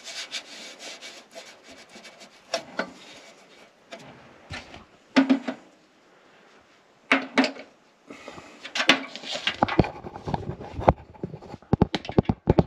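Hand rubbing and feeling along sheet metal, with scattered knocks and clatter: a couple of sharper knocks near the middle and a busy run of clicks and knocks in the last few seconds.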